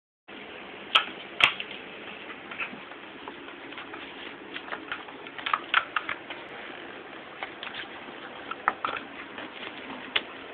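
Kitten batting an empty cardboard toilet paper roll around, making irregular light taps and knocks, with two sharper knocks about a second in.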